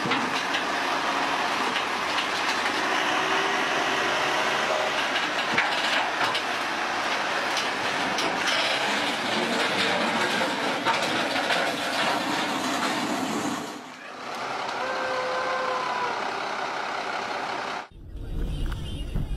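Terex mobile crane's engine running as it drives up a low-bed trailer's ramp, under a steady noisy hiss. Near the end the sound cuts abruptly to a low, steady rumble of road noise inside a moving car.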